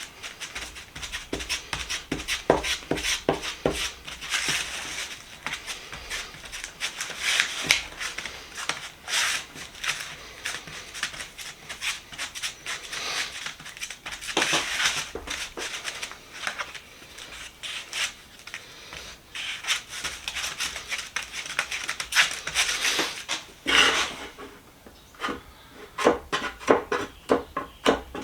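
Bondo body filler being worked with a spreader: repeated, irregular scraping and smearing strokes. The strokes ease off briefly near the end, then come quicker and shorter.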